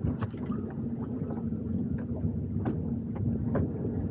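Wind buffeting the microphone in a steady low rumble, with small waves slapping against the boat's hull in scattered light knocks.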